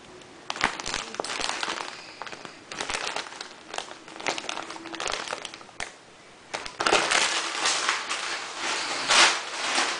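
Plastic poly mailer bag crinkling and rustling as it is handled, in irregular bursts, densest and loudest over the last three seconds.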